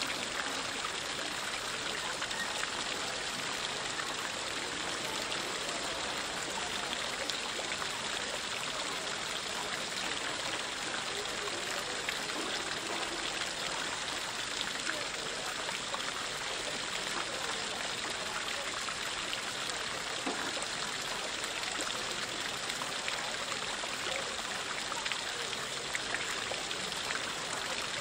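Water from the spouts of the marble Fontana del Pantheon splashing into its basin, a steady, unbroken splashing and trickling.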